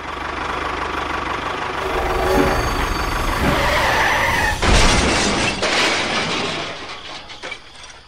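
Sound effect of a train running and crashing: a steady, noisy vehicle rush with a loud crash about five seconds in, fading out near the end.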